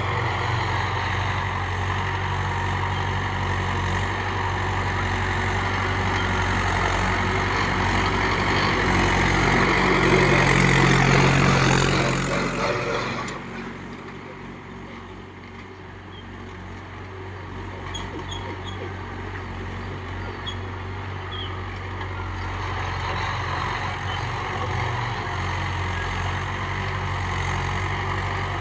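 Mahindra 575 DI XP Plus tractor's four-cylinder diesel engine running. It grows louder and higher until about two-thirds of the way through the first half, drops off suddenly, then slowly builds up again.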